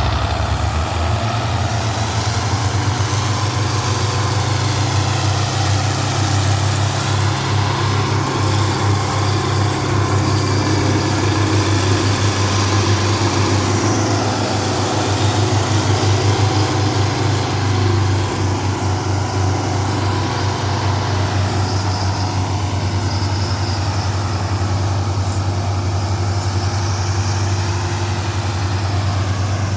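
Tractor diesel engine running steadily at a low, even speed, with a deep pulsing throb.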